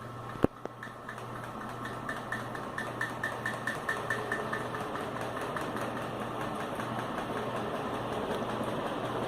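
Unrestored 1995 Loren Sid M1 commercial ceiling fan running: a steady motor hum under rushing air noise that grows louder as it gathers speed. A sharp click comes just after the start, and from about two seconds in a light regular ticking, about four a second, runs for a couple of seconds.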